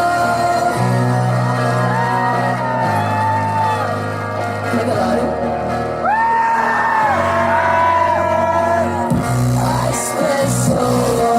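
Loud live music through a PA: a deep bass line that changes note every couple of seconds, with sung and shouted vocals over it.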